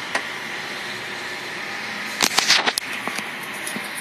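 Steady hiss of freeway traffic heard from above. A quick cluster of sharp knocks and clicks comes about two seconds in.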